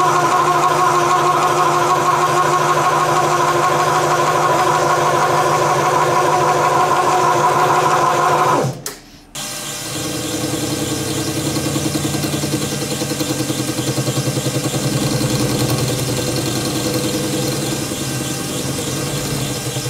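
Metal lathe running steadily with a whining gear tone while cutting an aluminum part. About nine seconds in the sound cuts off, then a lathe runs again with a lower, quieter hum as an end mill bores into the spinning part.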